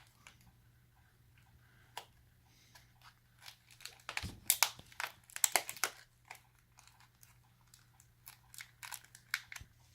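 Plastic wrapping crinkling and tearing in bursts of sharp crackles, densest in the middle, as a small toy figure is unwrapped by hand.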